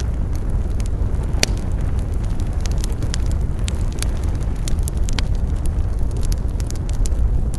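Campfire crackling: irregular sharp pops and snaps over a steady low rumble, the loudest pop about a second and a half in.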